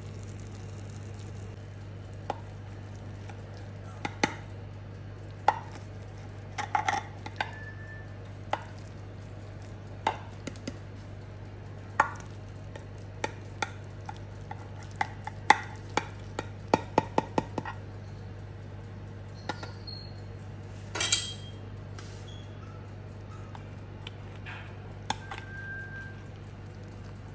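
A metal spatula knocks and scrapes against a glass baking dish while a baked cheese-topped rice casserole is cut and lifted out. The taps come irregularly, with a quick run of ticks past the middle and a louder clatter about three-quarters through, over a steady low hum.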